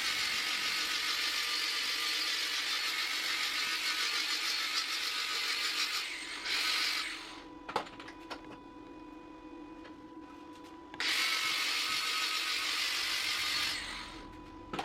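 Angle grinder smoothing a thick metal pipe and plate, run in two long passes with a short burst between them and a pause of a few seconds in the middle.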